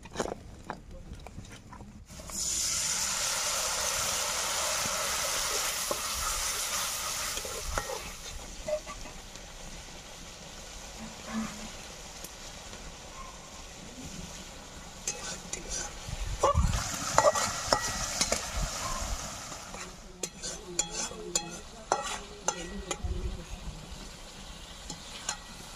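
Curry masala frying in hot oil in a wok, sizzling. The sizzle starts suddenly about two seconds in, is loudest at first and then dies down, with a second louder spell of sizzling later. A metal spatula stirs and scrapes the pan, making scattered clicks.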